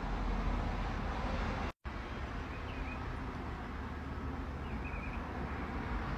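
Steady low rumble and hiss of background noise, broken by a split-second dropout about two seconds in, with two faint high chirps later on.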